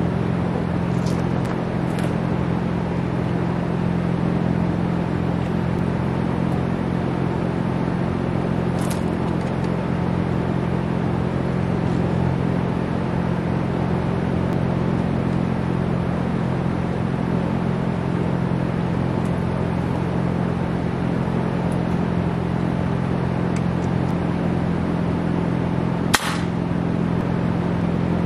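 Air compressor running with a steady hum. Near the end a pneumatic nailer fires once with a sharp crack, with a few light clicks earlier on.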